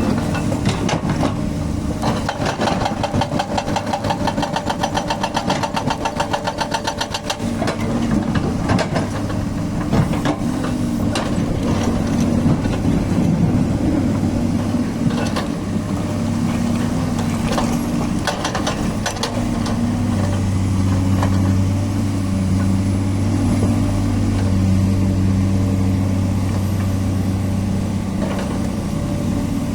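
Hydraulic breaker hammer on a Volvo excavator pounding rapidly and evenly for several seconds, then stopping. After that come scattered knocks and clunks over the excavator's steady diesel engine hum.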